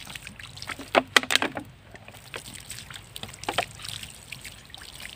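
Water poured from a plastic bottle splashing onto loose sandy soil around a seedling, with a burst of louder splashes about a second in and a few more later.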